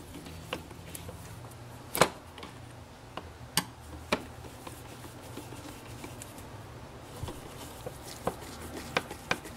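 Scattered clicks and taps of a flathead screwdriver and gloved hands tightening a worm-gear hose clamp on the plastic intake pipe. The sharpest click comes about two seconds in, and a few more come near the end, over a faint steady low hum.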